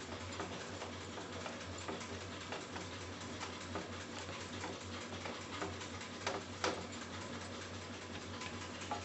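Spatula stirring okra and tomato in a nonstick pan: frequent light taps and scrapes against the pan, with two louder knocks about six and a half seconds in, over a steady low hum.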